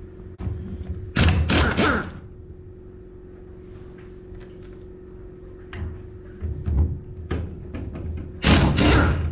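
Pneumatic impact wrench run in two short bursts, about a second in and again near the end, loosening the sprocket nuts on a corn head row unit; quieter knocks and clanks in between.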